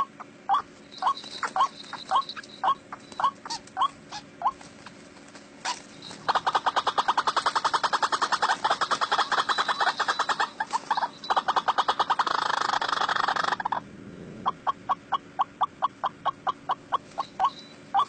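White-breasted waterhen calling: a run of short, repeated call notes a few a second, breaking about six seconds in into a fast, louder chattering series for about eight seconds, then settling back into the slower repeated notes.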